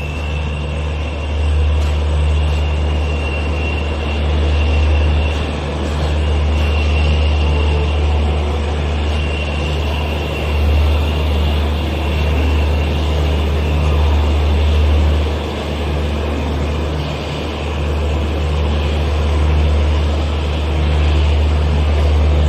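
Passenger train running slowly into a station platform, heard from an open coach door: a steady rumble of wheels on the rails, with a thin high squeal that comes and goes.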